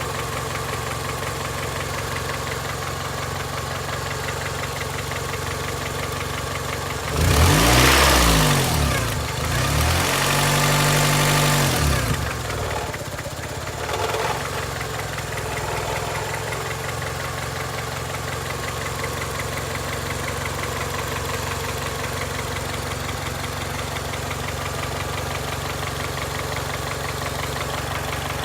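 2002 Honda Accord engine idling with a knocking noise. About a quarter of the way in it is revved briefly twice, then settles back to a steady idle. The owner can't tell whether the knock calls for a valve adjustment or is rod knock.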